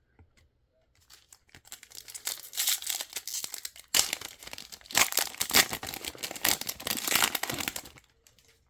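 A trading-card pack's plastic wrapper being torn open and crinkled by hand, with a dense crackle and a couple of sharper snaps partway through.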